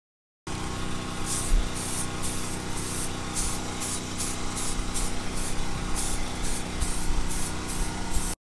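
Aerosol spray can being sprayed in short, repeated bursts, two or three a second, over a steady low hum.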